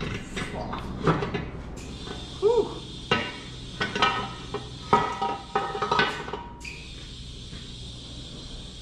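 Irregular metal clanks and knocks of an engine oil sump being worked free of its sealant and pulled down off the Ford 1.0 EcoBoost three-cylinder engine.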